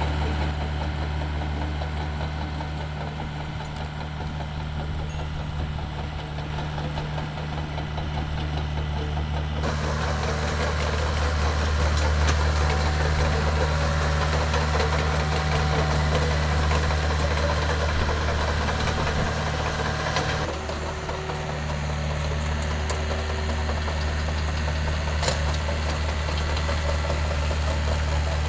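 Doosan DX55 mini excavator's Yanmar 4TNV diesel engine running steadily with a deep, even hum as the machine travels on its steel tracks. The sound changes abruptly about ten and twenty seconds in.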